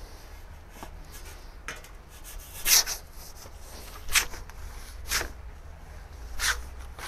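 Perforated metal pizza peel scraping across a stainless steel table as it is pushed under a raw pizza: four short scrapes, the first and loudest about a third of the way in.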